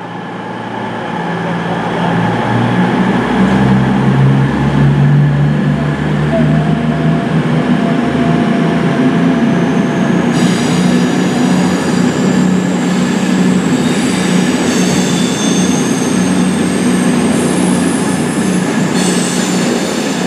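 CrossCountry Class 221 Super Voyager diesel multiple unit pulling away under power, its underfloor diesel engines running with a steady low drone that builds a few seconds in. From about halfway, high squealing from the wheels on the curved track sounds over the engines, slowly rising in pitch.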